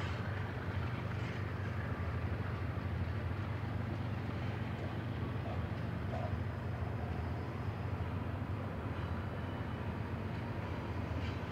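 Double-stack intermodal train's well cars rolling past, a steady low rumble of steel wheels on rail.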